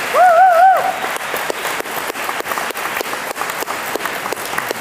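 Audience applauding, a dense steady clapping, with one person's brief wavering high-pitched cheer near the start.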